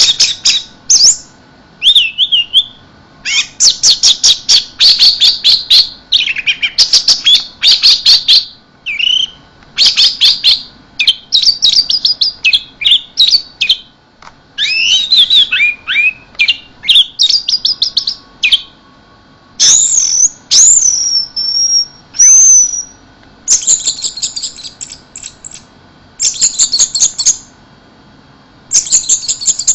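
Orange-headed thrush singing a long, loud run of varied phrases: rapid chattering trills and clicks mixed with clear whistled notes and pitch slides, each phrase a second or two long with short pauses between.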